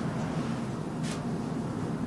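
Steady low hum of classroom room tone, with a brief rustle about a second in, likely paper being handled.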